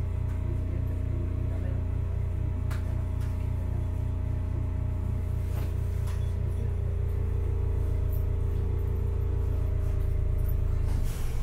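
Hakodate City Tram 3000 series car 3002 standing at a stop, heard from on board: a steady low, throbbing hum from its onboard equipment with several steady tones above it, which cuts off about eleven seconds in.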